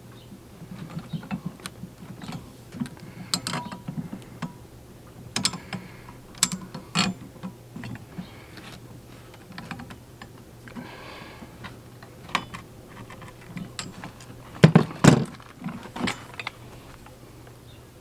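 Steel parts of a pallet breaker tool being handled and fitted: irregular light clicks and taps, with a louder clatter of knocks about fifteen seconds in.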